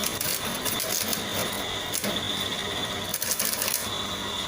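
Homemade coconut-shell peeling machine running, with a steady high whine and low hum under a continuous rattling clatter of shell against the mechanism.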